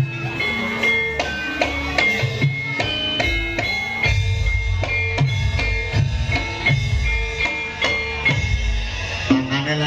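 Band music with a drum kit keeping a steady beat under a repeating melody, with no singing.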